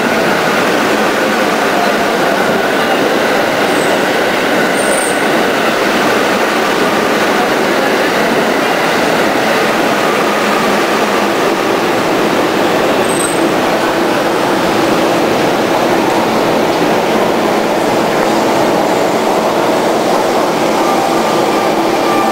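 Electric commuter train at a station platform, pulling in and standing. It makes a loud, steady rushing noise with a few faint steady tones.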